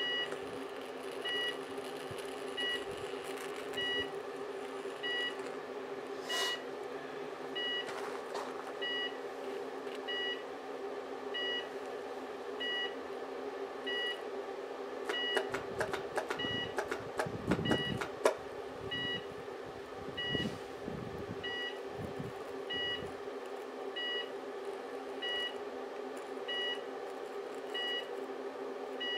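High-voltage arcing and burning across a cooker switch fed by two series-wired microwave oven transformers, with a steady electrical hum and buzz, and a stretch of sharp crackling arcs about halfway through. A high two-tone beep repeats about every second and a quarter throughout.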